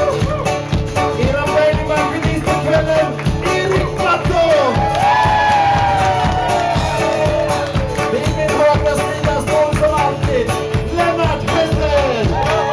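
Live band playing an upbeat rock tune with singing, on acoustic guitar, accordion, electric bass, electric guitar and drums, with a steady beat.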